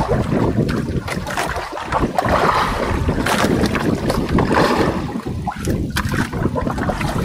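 Wind buffeting the microphone over water sloshing against a small boat's hull, with scattered small knocks.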